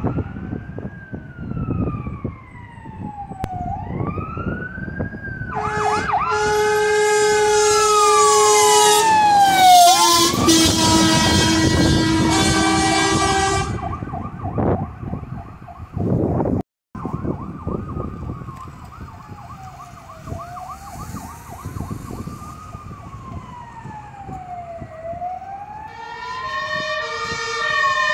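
Fire engines on an emergency run: an electronic siren wails up and down, and a pneumatic two-tone Martin horn blares loudly over it from about six to thirteen seconds in and again near the end. Truck engine noise rumbles underneath.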